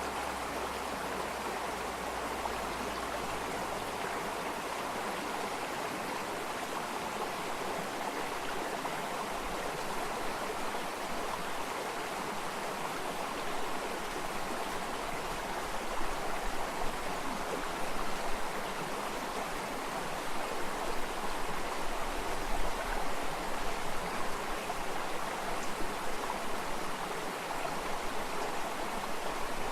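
Stream water running and babbling steadily over stones, with some heavier low gurgles in the second half.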